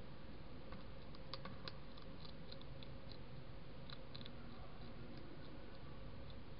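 Hedgehog eating dry food from a plate: irregular small crunching clicks, busiest about a second in and again about four seconds in, over a steady faint hiss.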